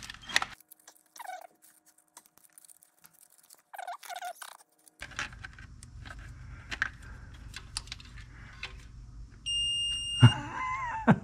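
Light clicks and rattles of LS engine harness wires being handled and probed. About nine and a half seconds in comes a short, steady, high beep of a multimeter's continuity tester, sounding when the probes find a connected wire.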